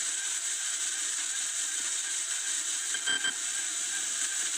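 Steady electronic hiss and static from a signal detector's receiver, with a faint warbling tone underneath and a short blip about three seconds in.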